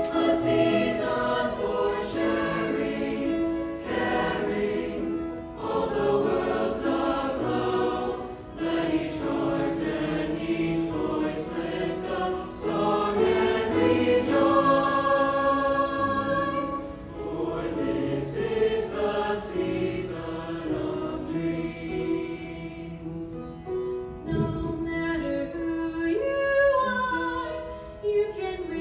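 Mixed school choir singing in harmony, holding long notes, with the volume swelling and easing off between phrases.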